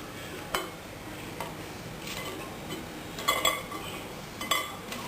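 A handful of short clinks and taps against a dish as half-roasted finger fryums are turned over inside the microwave, a few of them ringing briefly. They come irregularly, two close together a little past the middle.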